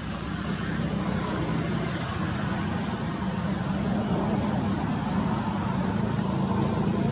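Steady low rumble of motor traffic or a running engine, even in level throughout.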